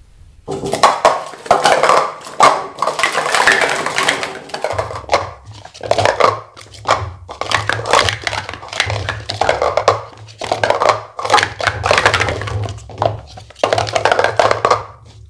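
Speed Stacks Stack Up 2018 limited-edition plastic sport-stacking cups clattering fast as they are stacked up into pyramids and down again on a stack mat, in repeated bursts of sharp clicks and clacks. A steady low hum comes in about five seconds in.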